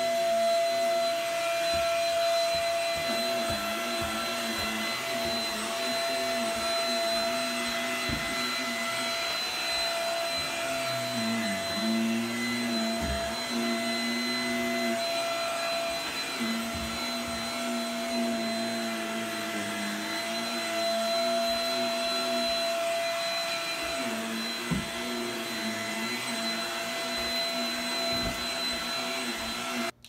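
Upright vacuum cleaner running on carpeted stairs: a steady high motor whine over a lower hum that wavers and dips as the head is worked over the treads.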